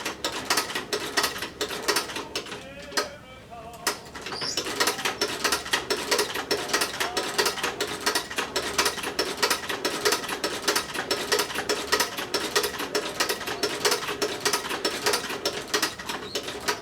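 Sewing machine stitching a zipper into a leather jacket: a rapid, even clatter of needle strokes. It stops for about a second around three seconds in, then starts again.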